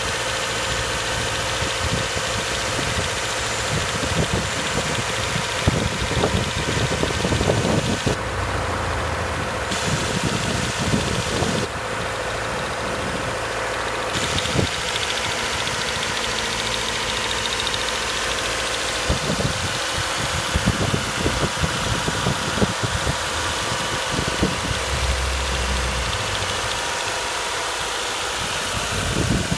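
Subaru FB25 2.5-litre flat-four engine running with a rapid ticking, knocking clatter over its steady hum.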